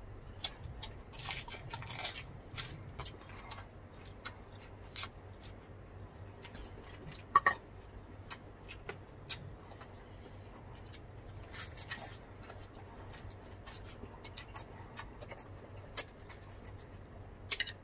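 Close-miked eating sounds: chewing and crunching with scattered small clicks and taps of food and tableware. A sharper click comes about seven seconds in and again near the end.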